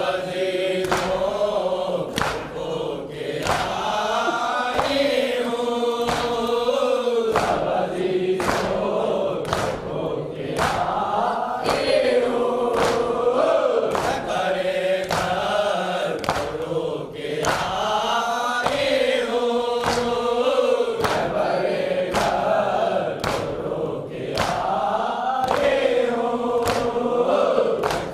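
Men chanting a noha, a lead reciter at the microphone with the group singing along in refrains. Under it runs a steady beat of open hands slapping chests (matam), about three slaps every two seconds.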